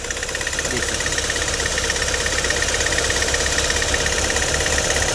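Hyundai i20's four-cylinder diesel engine idling roughly with a regular knock, misfiring with its No. 2 injector connected, the injector the mechanic suspects of an internal short. It grows slowly louder.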